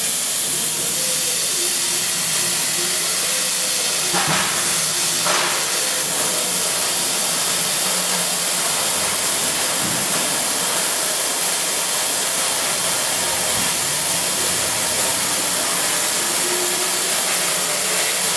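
Desktop laser cutting machine running while it cuts wooden sheet: a steady hiss of air blowing through the cutting head's nozzle, with a faint whine from the gantry motors that wavers in pitch as the head changes direction. Two short knocks come about four and five seconds in.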